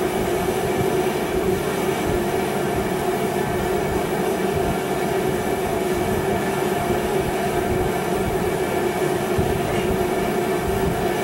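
Shop heater running: a steady hum of several held tones over a constant rush of air.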